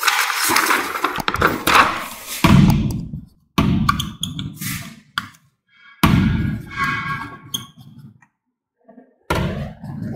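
Papers rustling on a table, then a dry-erase marker squeaking across a whiteboard in short strokes as words are written, with a few knocks.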